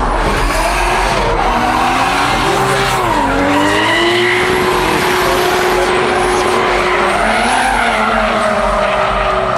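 Drift cars sliding at high revs with tyres screeching. The engine note dips about three seconds in, holds steady for a few seconds, then shifts again.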